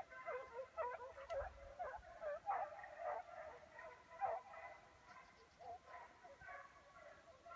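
A pack of beagles baying and yelping faintly, several dogs calling over one another as they give tongue in pursuit of a hare. The calls thin out and fade after about five seconds.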